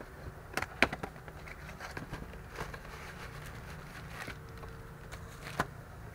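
A cardboard box and a plastic-wrapped cabin air filter being handled and unpacked: scattered sharp clicks and short crinkles of cardboard and plastic, the loudest about a second in and again near the end.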